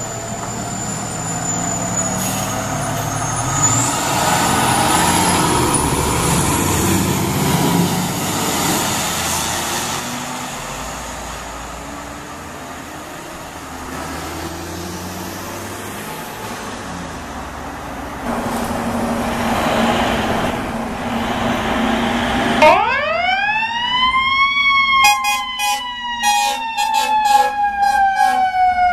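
Fire trucks responding under sirens: a siren wails early on. About 23 seconds in, a mechanical siren winds up sharply and begins a long slow fall, with short repeated horn blasts cutting in over it.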